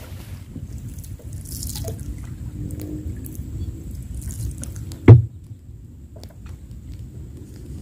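Water dripping and splashing around a small wooden boat, over a low rumble, with scattered small clicks and one sharp, loud knock about five seconds in.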